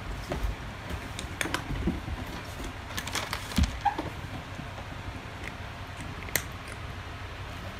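A cat chewing dry kibble: irregular crisp crunches, with a louder knock about three and a half seconds in.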